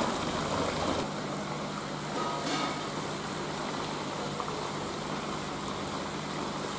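Sea snake rolls deep-frying in a wok of hot oil, a steady sizzle.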